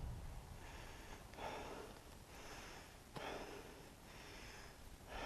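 A person breathing hard through the mouth, short puffs of breath coming about once a second, out of breath from the climb.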